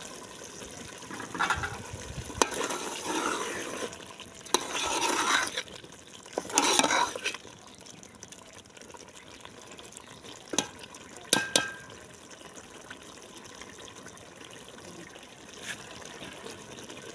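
A ladle stirring a thick taro and potato curry in a metal pot: several bursts of wet sloshing in the first seven seconds, then sharp clinks of the ladle against the pot, three of them close together a little past the middle.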